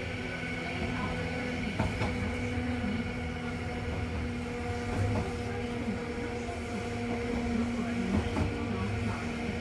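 Randen (Keifuku Electric Railroad) tram car running along the track, heard from inside the car: a steady hum and rumble with a few sharp clacks from the wheels on the rails.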